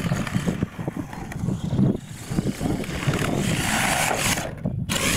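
Radio-controlled monster truck driving over a dirt course, its tyres rumbling and crunching on the ground, with wind buffeting the microphone.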